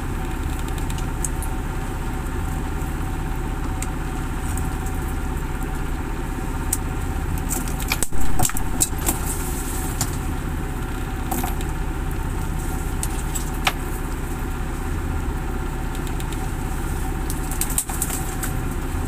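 Motor boat's engine running steadily at a constant low hum, with scattered clicks and knocks and a brief louder clatter about eight seconds in.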